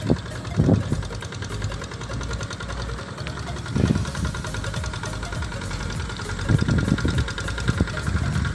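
An engine idling steadily, with a few brief low thuds.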